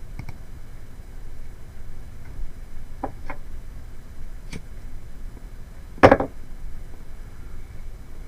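A few scattered light clicks over a steady low hiss, with one louder knock about six seconds in.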